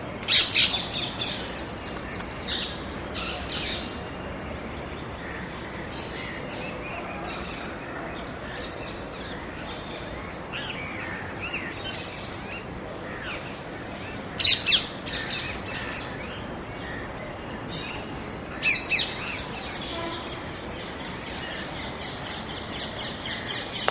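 Rose-ringed parakeet calling: three short groups of loud calls, near the start, just past the middle and again a few seconds later. Faint chirping continues between them and becomes a fast, even run of chirps near the end.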